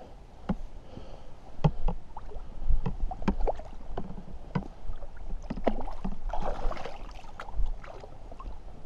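Landing net dipped into shallow lake water to release a trout: water sloshing and splashing with sharp knocks and clicks, and a longer splash about six seconds in, over a low rumble.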